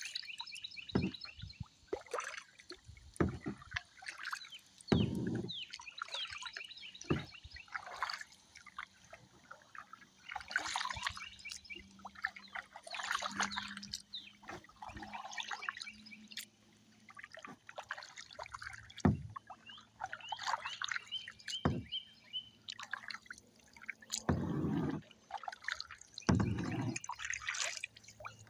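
Kayak paddle blades dipping into calm water and pulling through, with irregular splashes and water dripping and trickling off the blades between strokes.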